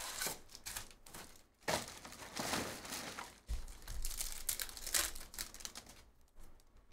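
A Topps Chrome baseball card pack wrapper crinkling and tearing open by hand, in several irregular bursts.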